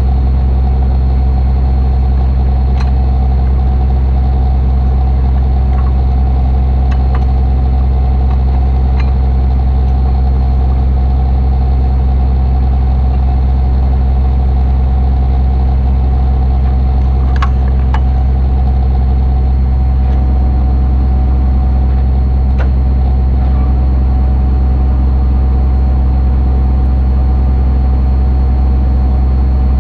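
Tow truck's engine idling, a steady deep drone, with a few faint clicks.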